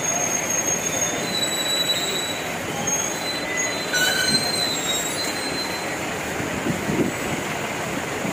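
Busy outdoor market ambience: a steady wash of background noise with a few thin, high-pitched squeals that come and go.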